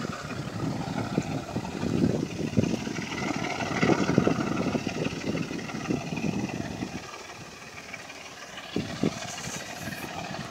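Class M4 diesel locomotive engine running in the distance as it approaches with a ballast train, with wind buffeting the microphone. The buffeting is strongest in the first seven seconds and then eases.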